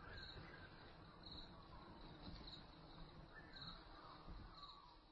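Faint forest ambience: an insect calling in short, high, buzzy pulses about once a second, over a low rumble.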